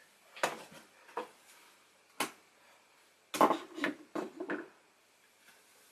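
Light clicks and knocks of a plastic 1/6 scale action figure being handled as its arms are posed: a few scattered taps, then a quick cluster of them a little past the middle.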